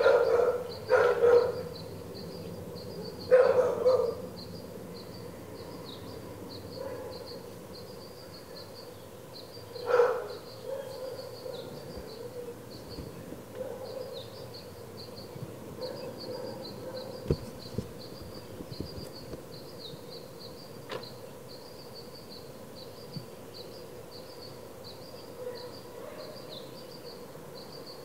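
A dog barking: several barks in the first few seconds, then one more about ten seconds in. A faint, steady, high-pitched chirping runs underneath throughout.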